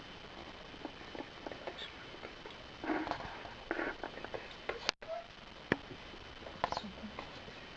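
Small animals scrabbling and tapping, with scattered light clicks and a few faint brief squeaks.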